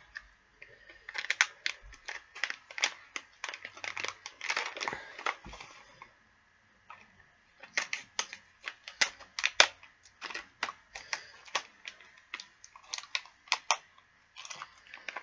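Thin plastic wrapper crinkling as it is handled and cut open with scissors: a run of sharp crackles and snips, broken by a pause of about a second in the middle.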